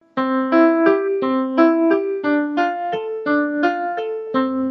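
A light piano-like keyboard tune: a run of short notes, about three a second, starting a moment in.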